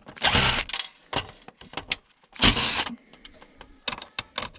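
A DVD player being taken apart by hand: two short rasping scrapes about two seconds apart, with scattered clicks and knocks of plastic and metal parts.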